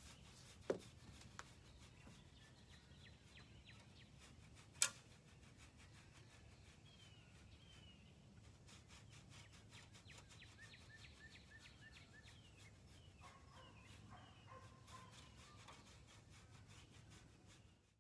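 Faint outdoor stable ambience: small birds chirping, with a quick run of short chirps in the middle, over faint scratching of a long-handled scratcher on a horse's coat. Two sharp clicks stand out, one under a second in and one about five seconds in.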